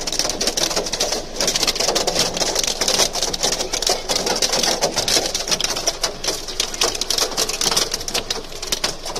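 Hailstones pelting a car's windshield and body, heard from inside the car: a dense, rapid, irregular patter of sharp clicks.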